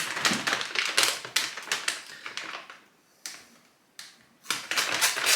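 Plastic bag of frozen chicken fillets crinkling and crackling as it is handled to be opened, in two spells with a short pause between.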